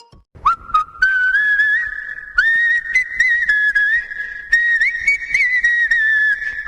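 Whistled ringtone melody: a single clear whistle line, a few short notes and then long held phrases that slide and waver in pitch.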